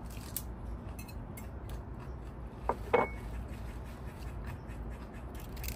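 Eating utensils clicking lightly against dishes, with one sharper clink about three seconds in that rings briefly.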